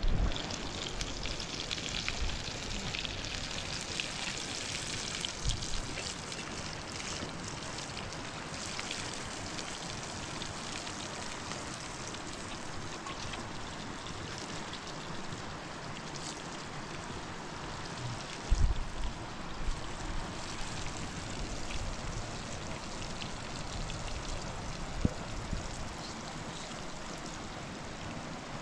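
Steady sizzling of food frying in oil in a pan over a wood fire, with a few short knocks, one about two-thirds of the way through.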